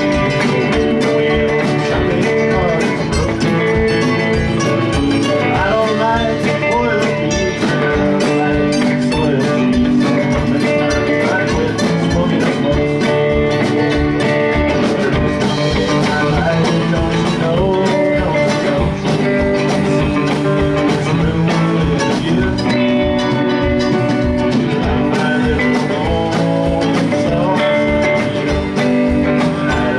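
Live rock band playing a guitar-led song with a steady drum beat.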